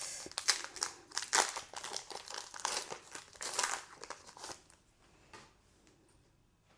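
Foil Pokémon TCG booster pack wrapper being crinkled and torn open: a run of crackling rustles that stops about four and a half seconds in.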